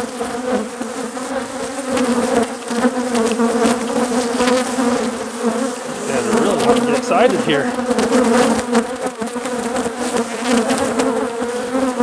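Steady hum of a large cloud of honeybees buzzing around an opened, overcrowded hive: a booming colony stirred up as its frames are pulled out.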